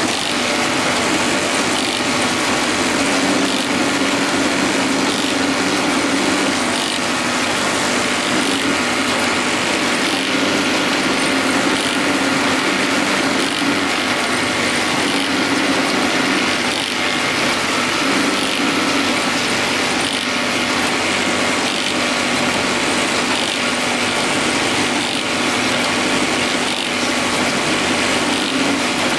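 Automatic bag-making machine with a Newlong industrial sewing head running steadily: a continuous mechanical clatter of the stitching and feed mechanism.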